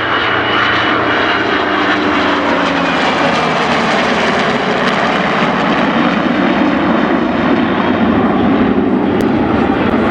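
F-22 Raptor jet flying past in formation with an A-1 Skyraider piston plane: a steady, loud engine roar whose pitch falls slightly as they go by. The Raptor is running without afterburner to keep pace with the propeller plane.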